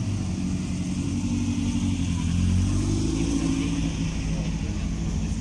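A car engine running, its pitch rising briefly about halfway through and then settling again.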